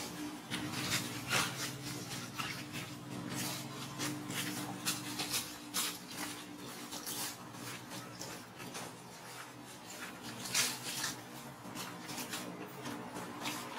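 Dry leaf litter rustling and crackling in short, irregular bursts as macaques shift about on the ground.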